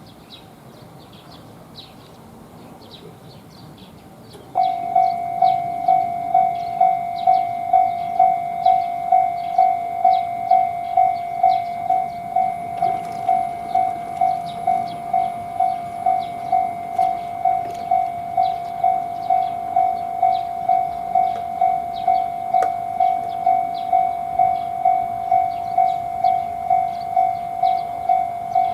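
Japanese level-crossing warning bell starting abruptly about four and a half seconds in, then ringing steadily at about two strokes a second, the crossing's signal that a train is approaching.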